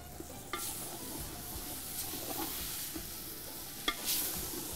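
Wooden spoon stirring a tomato, garlic and spice base frying in an aluminium pot, the food sizzling steadily. There are two sharp knocks, about half a second in and near the end.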